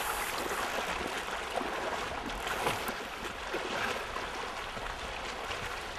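Shallow river riffle running over rocks: a steady rush of water.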